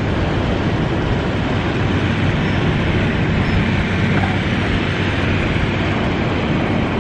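Steady roar of breaking surf, with a low steady drone underneath from the catamaran's four-stroke Suzuki outboard motors.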